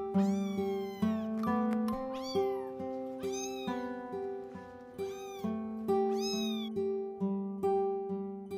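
Kitten meowing repeatedly, about six short, high meows that rise and fall in pitch over the first six seconds, over background music of plucked strings.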